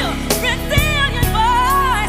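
Background music: a song with a singer's voice holding long, wavering notes over steady accompaniment.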